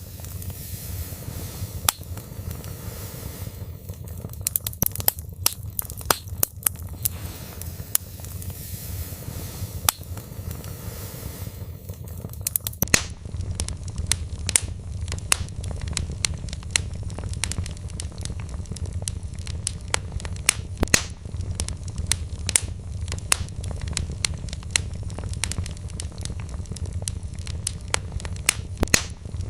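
Wood fire in a fireplace crackling, with frequent irregular sharp pops and snaps of burning logs over a steady low rumble of flames.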